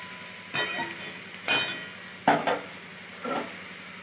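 A metal spatula clinks against the side of a steel kadai four times, each knock ringing briefly, while a vegetable curry is stirred.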